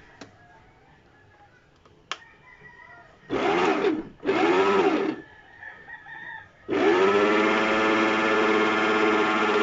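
Electric stand mixer's motor pulsed on twice for about half a second each, its whine rising and falling in pitch, then switched on to run steadily from about seven seconds in, starting the mixing of the flour. A click sounds about two seconds in.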